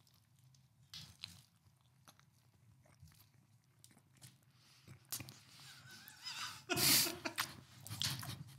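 A person biting into and chewing a custard slice close to a microphone: soft, wet mouth sounds and small clicks. It is faint at first and grows busier and louder in the second half.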